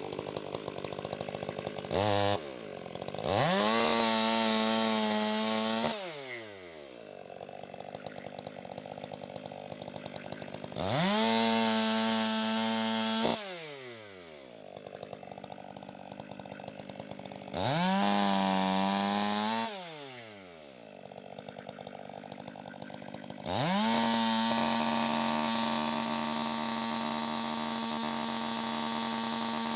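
Two-stroke chainsaw revved from idle up to full throttle four times. Each burst is held for a few seconds before the engine drops back to idle, and the last burst runs longest.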